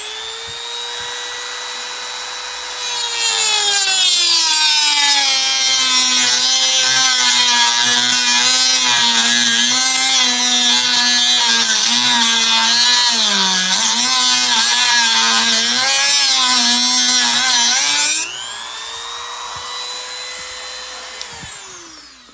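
Dremel rotary tool with a cutting wheel: the motor whines up to speed, then drops in pitch under load with a harsh grinding for about fifteen seconds as the wheel cuts a cross into a copper rivet, splitting its ring. Near the end it comes off the metal, whines back up to full speed and winds down.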